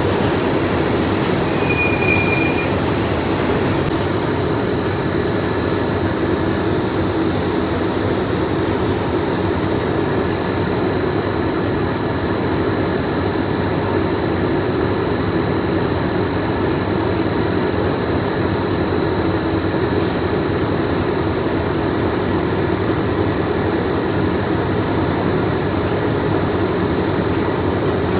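Steady factory machinery running, a dense continuous noise with a constant high whine over it, and one short click about four seconds in.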